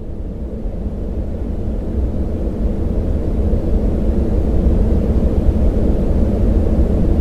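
Synthetic yellow noise: a deep, steady hiss boosted in the low mids around 200 Hz, fading in and growing louder over the first few seconds.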